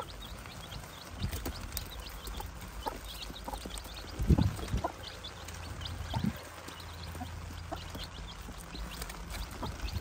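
Chicks with a hen, peeping in short, scattered high calls. There are two low thumps, a loud one about four seconds in and a smaller one about six seconds in.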